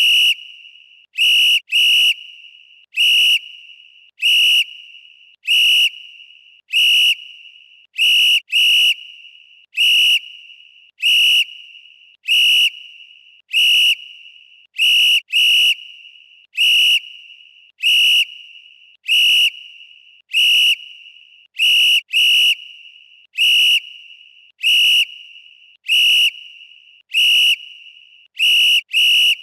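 Referee whistle blown in short, sharp blasts, a little more often than one a second, some coming in quick pairs. Each blast is one steady shrill tone with a fading echo after it.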